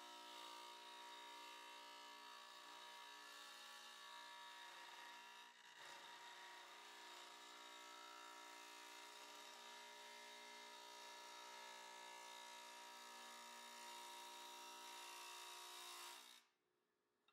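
Faint, steady whine and hum of a bench machine's electric motor running, with a hiss over it, briefly dipping about five and a half seconds in and stopping near the end.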